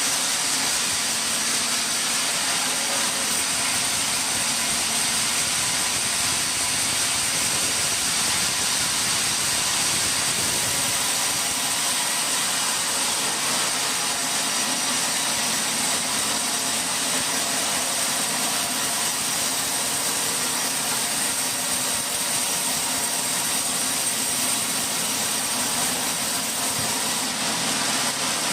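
Sawmill machinery running steadily, a constant mechanical noise with a high whine over it and no separate cuts or knocks standing out.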